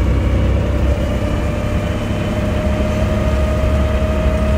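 Steady engine and road noise heard from inside a moving vehicle: a constant low rumble with a thin steady whine above it.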